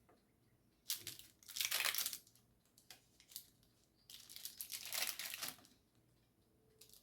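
Crinkling rustle of something being handled, in two spells of about a second and a half each, the first starting about a second in and the second about four seconds in.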